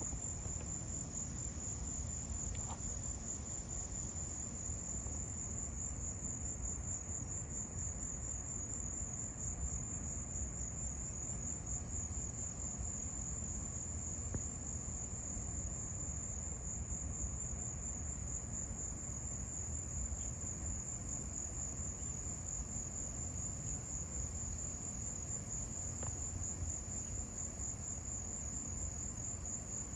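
Steady, high-pitched insect chorus, a continuous finely pulsing trill, over a low rumble.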